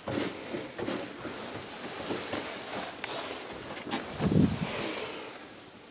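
Handling and movement noise inside a wooden hunting tower: scattered knocks and rustling as someone shifts on the plank floor, with a louder dull thump about four seconds in.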